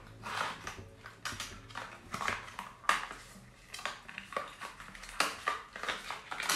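Small cardboard gift box being handled and opened by hand: irregular clicks, scrapes and rustles of the card flap and packaging as a nail file is tipped out into the palm.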